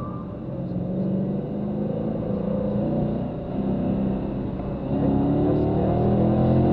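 Car engine accelerating hard, heard from inside the cabin, its pitch climbing steadily. About five seconds in the pitch drops briefly, then climbs again and gets louder.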